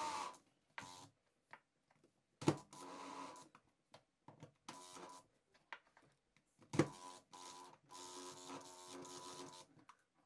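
Cordless drill/driver tightening screws through a towel ring's metal mounting plate into the wall, running in short bursts of steady motor whine. A sharp click starts two of the bursts, and the longest run comes near the end.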